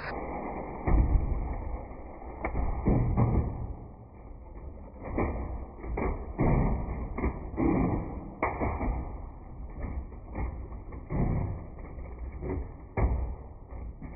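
Beyblade X spinning tops battling in a plastic stadium: irregular knocks and clacks as they collide, over a low whirring rumble, sounding muffled.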